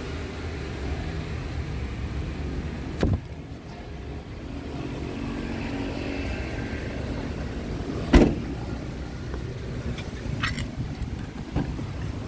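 Car engine idling with a steady low hum, broken by two thumps: a sharper one about three seconds in and a louder, heavier one about eight seconds in.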